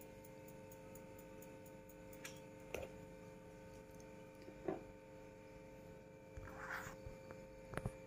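Small DC cooling fan running off a salvaged computer power supply: a faint, steady hum made of several steady tones. A few faint ticks and a brief hiss break in about two-thirds of the way through.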